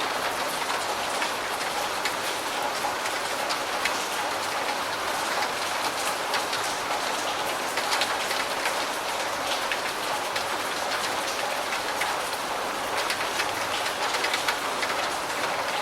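Steady rain falling on a hard surface, an even hiss dotted with many small sharp drop impacts.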